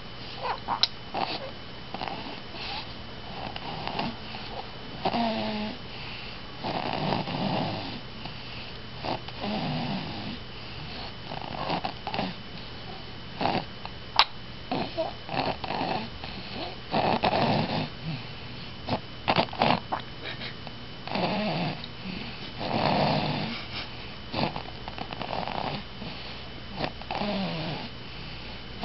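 Snoring, one breath every two to three seconds, with a few short sharp clicks between the breaths.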